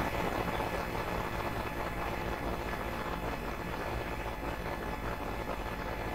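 Steady background noise with a low hum and no distinct events: room tone.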